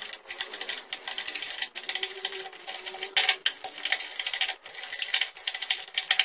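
Spoon beating thick urad dal batter in a glass bowl, a rapid run of scraping, knocking strokes against the bowl, a little louder about three seconds in and at the very end. The batter is being whipped to make it light enough for vadas.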